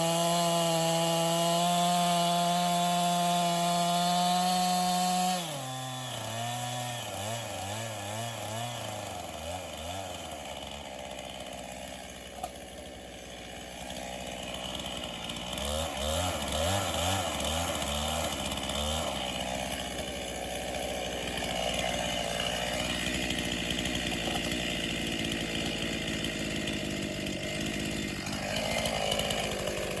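A 50cc gas chainsaw running at full throttle, then dropping suddenly to a lower, wavering engine note about five seconds in; later it runs unevenly with falling swoops in pitch while bucking ash into firewood rounds.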